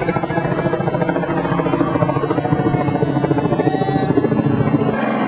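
Helicopter running with a steady, rapid rotor chop.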